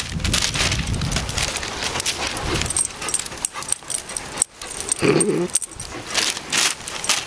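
Dogs play-wrestling at close range: a stream of scuffling clicks and jingles, with a brief low dog vocalization about five seconds in.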